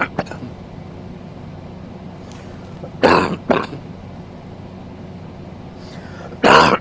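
A man coughing: a double cough about three seconds in and a louder, harsher cough near the end, over a steady low hum.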